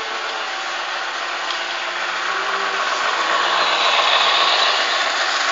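Model train running along the layout track: a steady rushing of wheels and motor that grows louder from about three seconds in, peaking as the locomotive and its cars pass close by.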